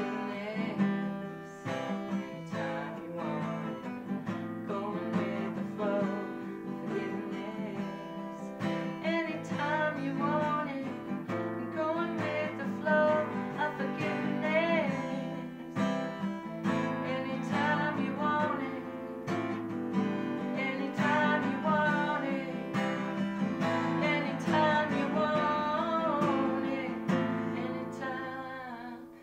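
Acoustic guitar strummed as accompaniment to a woman singing a slow melody.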